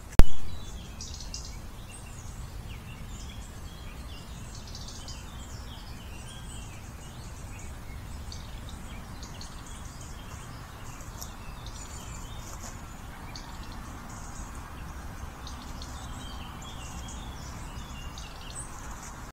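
Several small birds chirping and singing in woodland, many short calls overlapping over a steady low background rumble. A single very loud, sharp click sounds just after the start.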